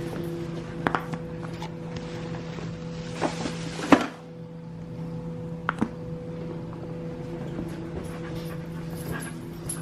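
Dog whimpering and panting over a steady low hum, with a few sharp clicks and knocks, the loudest about four seconds in.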